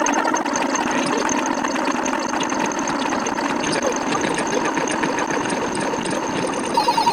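A steady, fast mechanical rattle like a small motor running; near the end a pulsing tone joins it.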